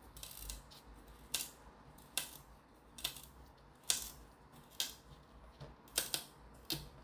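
Chef's knife cutting into the hard rind of a whole kabocha squash around the stem, giving a series of sharp crunching cracks, about nine, roughly one a second.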